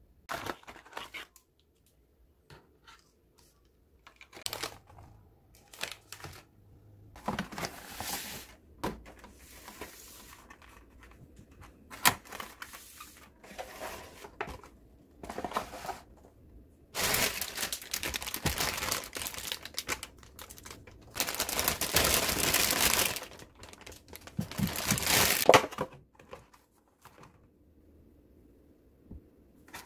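Plastic food packaging rustling and crinkling as fruit is handled, in a series of bursts that grow longer and louder in the second half.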